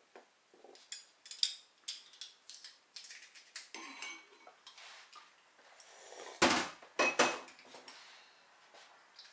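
Metal garlic press worked by hand, giving a run of small clicks and clinks, then two louder knocks a little past the middle.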